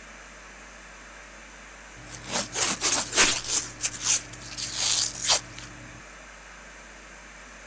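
Grey duct tape being ripped off the roll again and again: a quick run of about ten rasping tearing pulls that starts about two seconds in and stops shortly before six seconds.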